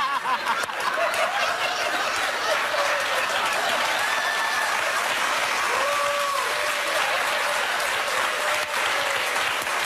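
Studio audience applauding steadily, with a few voices heard faintly over the clapping.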